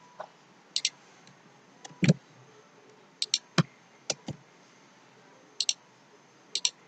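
Scattered computer mouse and keyboard clicks, about eight in all, several coming as quick double clicks and a few with a duller knock.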